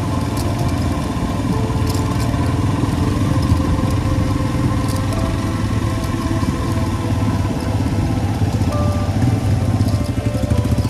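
Motorcycle engine running steadily, with a few sharp ticks scattered through.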